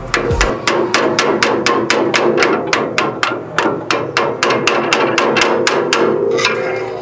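Rapid, even hammer blows, about five a second, tapping a new front CV axle's inner end into the differential to pop its retaining clip into place. The blows stop shortly before the end.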